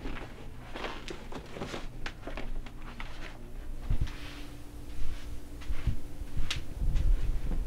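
A person moving about a small room: scattered taps, knocks and rustles over a low rumble, with a few heavier thumps, one about four seconds in.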